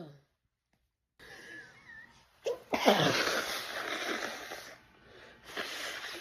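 A woman sneezing during a sneezing fit: after about a second of silence, a wheezy in-breath, then a loud sneeze about three seconds in that trails off into a long breathy exhale, and a shorter sneezing burst near the end.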